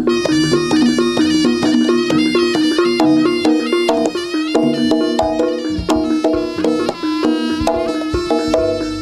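Jaranan ensemble music: a slompret (Javanese shawm) plays a loud, reedy, wavering melody over the ensemble's repeating pitched metal percussion and drum strokes.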